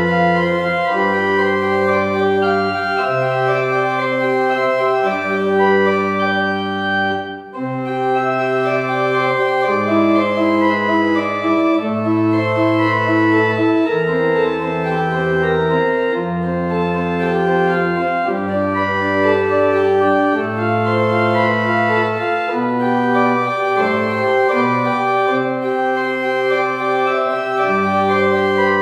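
Church pipe organ playing an instrumental piece: sustained chords over a bass line that moves every second or two, with a brief break between phrases about seven seconds in.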